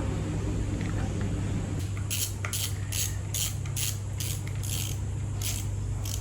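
Washing a plastic motorcycle front mudguard: from about two seconds in, a run of about ten short, quick hissing strokes, roughly three a second, over a steady low hum.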